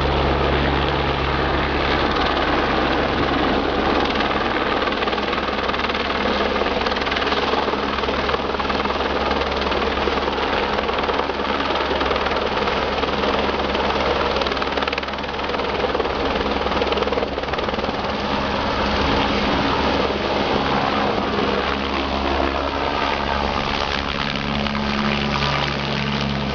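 Helicopter flying low overhead with a load slung beneath it on a long line; its rotor and engine give a loud, steady drone.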